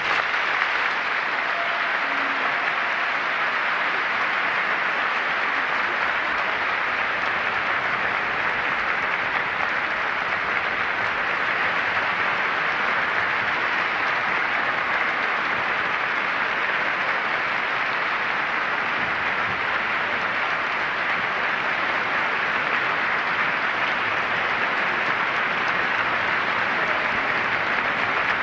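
Sustained applause from a large concert audience, an even, steady clatter of many hands.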